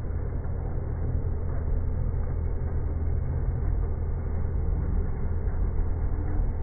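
CNC lathe turning a steel bar with a WIDIA WNMG 08 carbide insert: a steady low rumble of the spindle and the cut, with no break or change.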